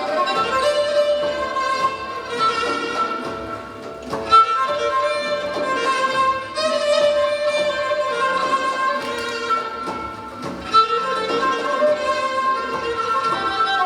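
Instrumental Persian folk ensemble music with a bowed string instrument carrying the melody.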